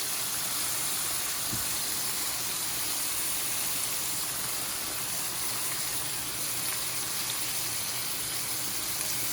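Steady sizzling hiss of steamed beets and freshly squeezed orange juice in a hot pan, the burner just turned off.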